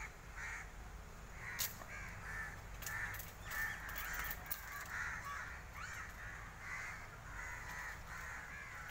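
Crows cawing over and over, about two calls a second, with one sharp click about a second and a half in.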